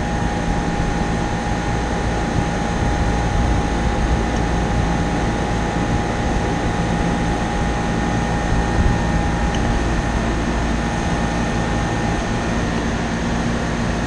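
Outdoor air-conditioning condensing unit running: a steady drone of its condenser fan and newly fitted compressor, with a thin steady whine that stops near the end.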